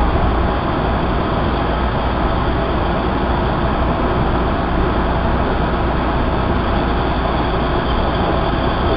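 A Bombardier 01800-series Red Line subway car running steadily along the track, with an even rumble of wheels on rail, heard from inside the car.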